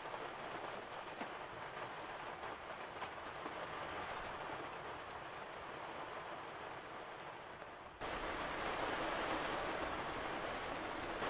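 Steady rain falling, a continuous even hiss that turns suddenly louder about eight seconds in.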